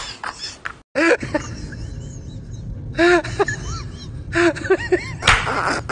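Men laughing in short, loud bursts, with a brief dropout about a second in.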